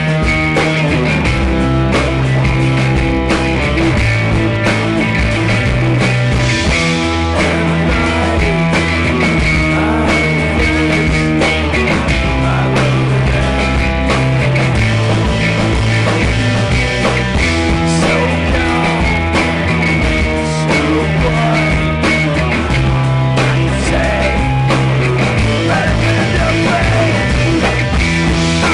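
Loud rock music from a band: electric guitar over a moving bass line, with drums keeping a steady beat.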